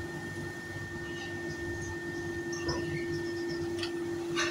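A steady electrical hum with a constant tone, with a few faint light ticks about two and a half, four and four and a half seconds in.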